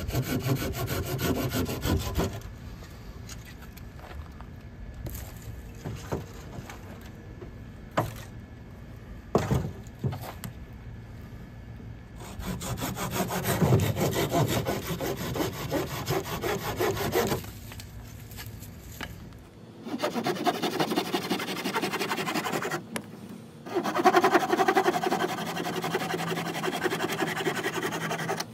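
Corona RazorTOOTH hand pruning saw cutting through a tree branch in several bouts of quick back-and-forth strokes, with short pauses and a few knocks between cuts.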